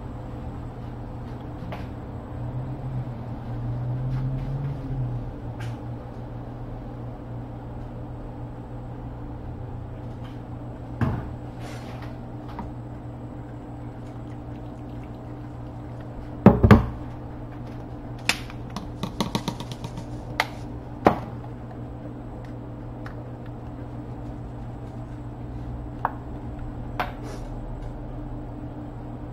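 Kitchen handling sounds over a steady low hum: scattered clicks and knocks of utensils and containers, the loudest a double knock about halfway through, followed shortly by a quick run of rattling taps.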